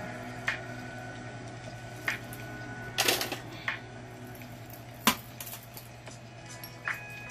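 Beads and small jewelry items clicking and clacking as they are handled: a few sharp clicks, with a short cluster about three seconds in and a sharp clack about five seconds in, over a steady low hum.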